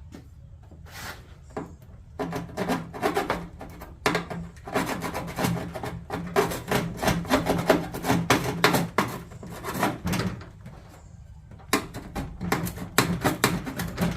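Hand file rasping in quick repeated strokes. It stops for about a second around ten seconds in, then starts again.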